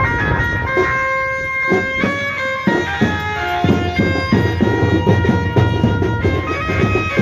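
Devotional band music: a melody of long held notes over drums, with the drumming getting busier about three seconds in.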